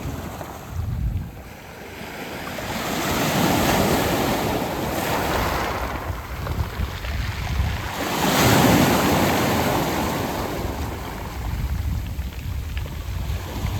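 Sea waves breaking and washing up a round-pebble beach, the surf swelling twice, about three and eight seconds in. Wind rumbles on the microphone underneath.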